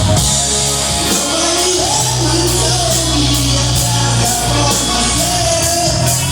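Live rock band playing loudly: bass, electric guitar and a steady drum beat with cymbals. A singer's voice comes in about a second and a half in.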